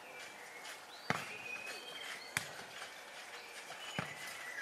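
Three sharp thuds of a futnet ball being kicked and bouncing on a hard court, about a second and a half apart, the first the loudest, with faint bird chirps behind.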